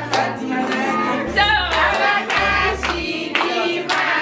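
Women and children singing together and clapping their hands in rhythm, over backing music with a bass line.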